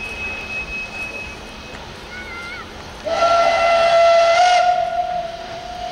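Steam locomotive whistle blowing a long blast with a hiss of steam, starting suddenly about three seconds in. It is loudest for about a second and a half, then sounds on more quietly. It signals the train's departure.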